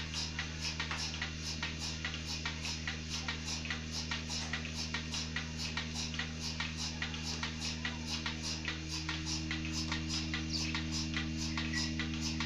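Milking machine running: the pulsator clicks steadily, about three times a second, over the constant hum of the electric vacuum pump.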